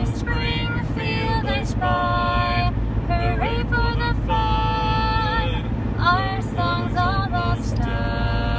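A woman singing a tune in held, slightly wavering notes, phrase after phrase, over the steady low rumble of a Jeep driving on the highway, heard inside its cabin.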